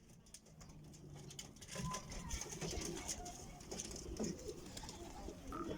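Pigeon cooing.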